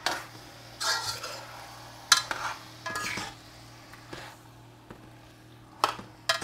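Spoon stirring curry-coated chicken pieces in a pot: irregular scraping strokes about once a second, with a sharp knock of the spoon against the pot about two seconds in. The chicken sizzles lightly in the curry oil underneath.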